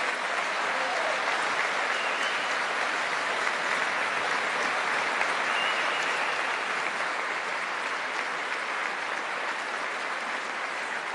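Sustained applause from a large crowd of hundreds clapping together, steady throughout and easing a little near the end.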